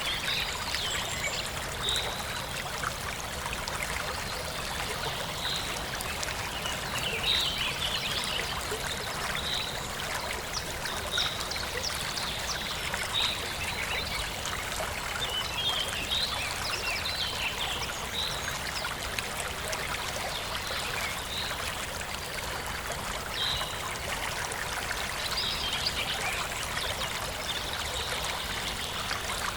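A forest stream running and babbling steadily, with short high bird chirps repeating every second or two over the water.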